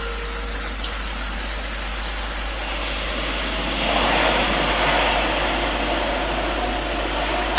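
Jet engine noise of an Airbus A380-861 with Engine Alliance GP7200 turbofans, a steady rushing that swells about four seconds in and then eases slightly.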